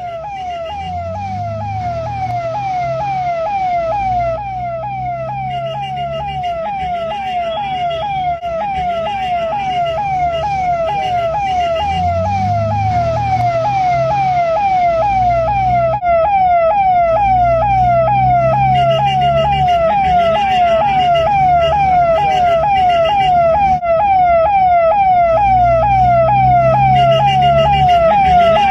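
Ambulance siren sounding a fast, repeating falling yelp, about two to three sweeps a second, growing steadily louder as it approaches.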